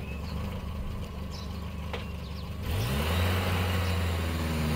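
UAZ-469 jeep engine running at idle, then revving up about three seconds in as the jeep pulls away, its pitch rising and the sound growing louder before holding steady.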